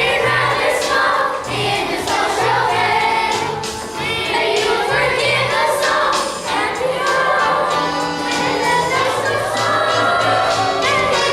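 A children's chorus singing a musical-theatre number in unison over a recorded accompaniment with a steady bass line.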